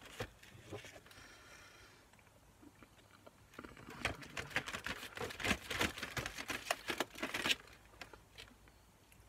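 Cardboard and plastic packaging of an advent calendar crinkling and crackling as it is handled, a dense run of small crackles for about four seconds from roughly a third of the way in.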